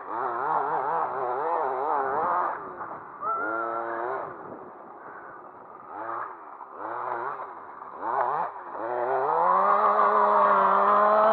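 RC car's engine revving in quick surges and dropping back several times as the car works up a dirt hill, then a long rise in revs that settles into a steady high note near the end as it runs flat out. The car is fitted with long gearing.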